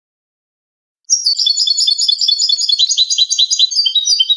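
European goldfinch singing: a fast, unbroken run of short, high notes that starts about a second in, out of silence. It is a clean-song (cante limpio) recording of the kind used to tutor captive goldfinches.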